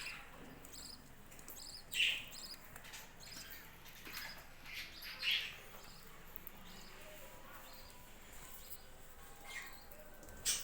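A flock of budgerigars chirping and twittering, with short high chirps throughout and a few louder, sharper calls standing out about two seconds in, around five seconds in and near the end.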